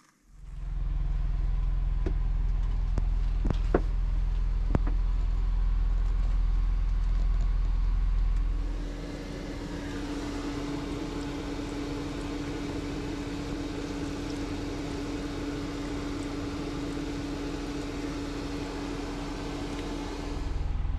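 Motor vehicle engine running with a deep, steady rumble, with a few light clicks in the first five seconds. About eight seconds in, the sound shifts to a quieter, steady hum with a hiss over it.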